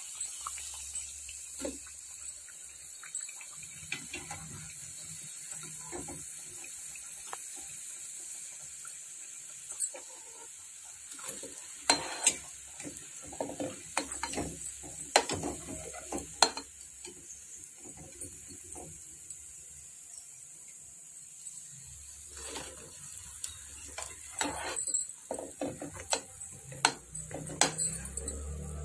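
Hot oil sizzling steadily around deep-frying coconut burfis. From about ten seconds in come repeated clinks and scrapes of a metal slotted spatula against the pan as the fried burfis are moved into sugar syrup.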